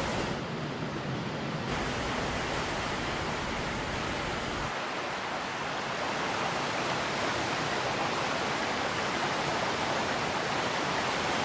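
Steady rushing noise of heavy falling water, such as rain or a waterfall, shifting in tone a few times.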